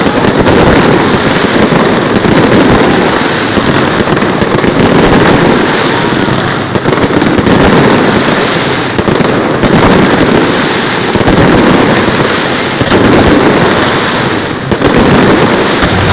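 Aerial fireworks display going off in a loud, dense barrage: rapid, overlapping bursts with no break.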